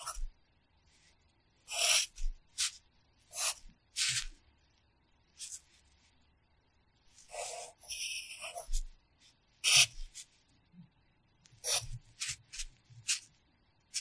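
Wooden pencil writing on workbook paper: short scratchy strokes in small clusters with brief pauses between them, as hiragana characters are drawn one stroke at a time.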